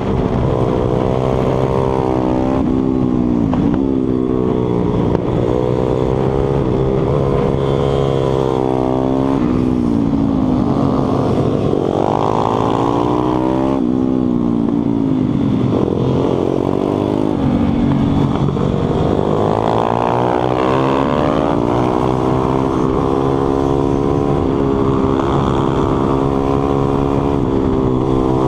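Stomp 140 pitbike's small single-cylinder four-stroke engine, heard from on board, revving hard around a supermoto track: the pitch climbs through each gear and falls back as the rider shuts off and downshifts for corners, over and over.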